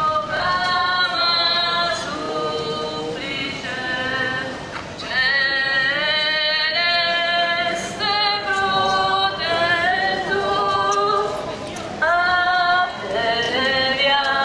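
A group of voices singing a hymn unaccompanied, in long held notes, phrase after phrase with brief breaks between.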